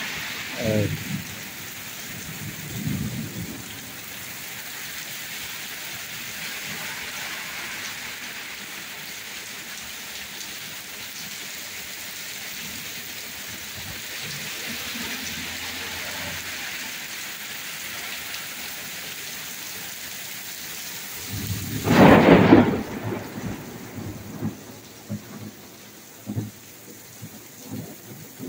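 Heavy rain falling steadily on pavement and a wet street, heard as a constant hiss. About 22 seconds in, a sudden loud thunderclap cracks, the loudest sound of all, followed by broken rumbling.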